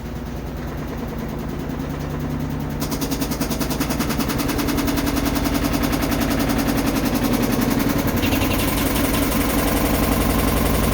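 Samsung WF330ANW front-load washer spinning up, its drum making a loud, rapid, rhythmic grinding and metal-striking noise that grows louder as it gathers speed. The owner suspects something loose inside, a detached shock absorber, or a worn spider bracket or drum bearing.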